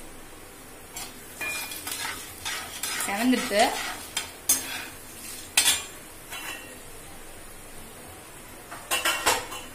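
Steel slotted spatula scraping and clinking against a kadai as chana dal and urad dal fry in hot oil with a light sizzle, the dals being stirred for a tempering. The clatter comes in clusters of knocks and scrapes, eases off after about six seconds, and returns briefly near the end.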